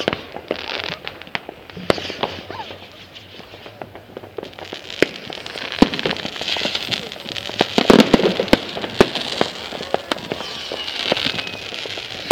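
Fireworks going off: many sharp bangs and pops at irregular intervals, turning into denser, louder crackling about halfway through.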